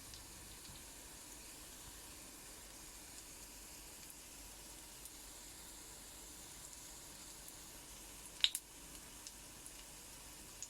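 Pancake batter sizzling faintly and steadily in a frying pan. A single sharp knock sounds about eight and a half seconds in.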